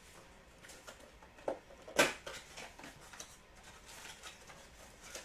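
Trading-card packs being handled and opened on a table: light rustling and scattered clicks, with one sharp tap about two seconds in.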